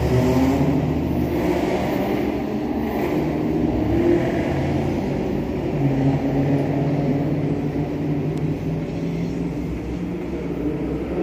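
SEPTA Market-Frankford Line M-4 train pulling away along the elevated curve: a steady rumble with held motor tones that change pitch a few times.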